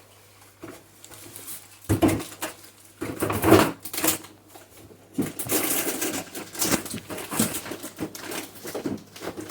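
Packaged food and plastic containers being shuffled and pushed into a crowded fridge: a knock about two seconds in, then a run of rustling, clattering handling sounds.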